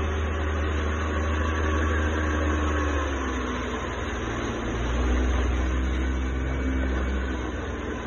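Motorboat engine running at speed with the rush of churning water in its wake. The engine note dips about three seconds in and swells again about five seconds in.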